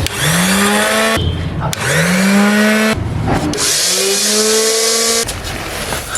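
Electric stainless-steel dry masala grinder starting up three times: each time the motor whine rises in pitch as it spins up, holds steady, then cuts off abruptly.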